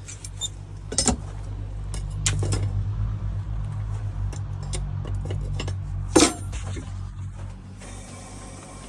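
Steel horseshoe clinking and knocking against the forge's new tiles as it is set inside, with the sharpest knocks about a second in and about six seconds in, over a low steady hum.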